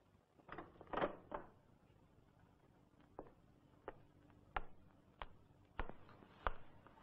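A door is handled with a few knocks and a scrape about a second in. Then a man's footsteps follow down a tiled hallway, evenly spaced single steps about two-thirds of a second apart.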